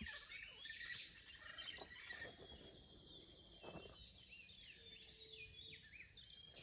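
Faint birds chirping and whistling, many short rising and falling calls overlapping, over quiet outdoor background.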